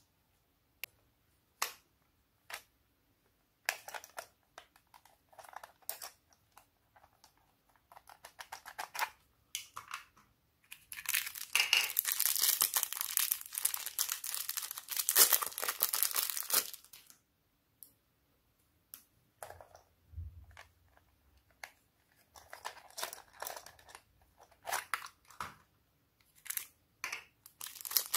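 Clear plastic bags crinkling and tearing as small items are unwrapped by hand, the loudest run about halfway through and another near the end. Scattered sharp clicks and taps come in the first few seconds.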